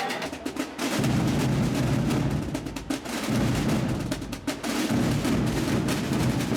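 Massed Holy Week drums of a tamborada: many snare drums rolling fast, with bass drums coming in heavily about a second in and beating on together. This is typical of the 'rompida de la hora', when the drummers break out all at once.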